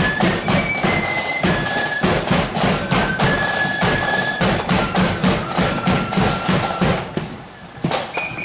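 Marching flute band playing: flutes hold a high melody over a steady beat of drums. The playing thins out about seven seconds in, then comes a single drum hit and a high flute note near the end.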